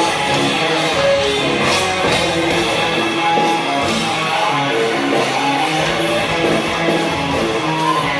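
Live rock band playing loud through an outdoor festival sound system, electric guitar to the fore.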